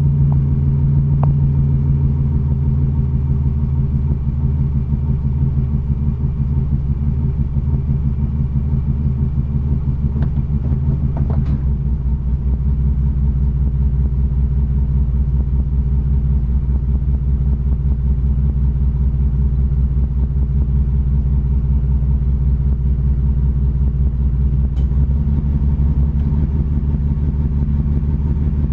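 1987 Chevrolet Cavalier RS's 2.8-litre V6 idling roughly, a steady run of firing pulses whose low note shifts slightly about twelve seconds in and again near the end. The rough idle persists although the owner has replaced everything he can think of.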